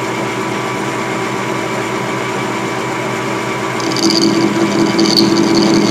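Metal lathe running steadily. About four seconds in, a tool bit is brought against the spinning shaft and rubs with a steady high-pitched tone, not cutting: the factory-hardened steel is too hard for the bit.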